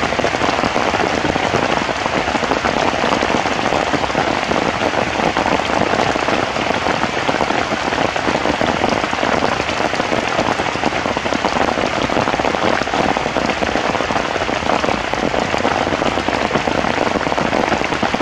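Heavy rain falling steadily: a loud, even hiss of rain on surfaces that does not let up.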